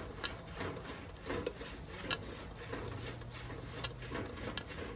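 Loose popcorn kernels rattling and shuffling inside a Coleman campfire popcorn popper as it is shaken over the fire, with a few sharp clicks.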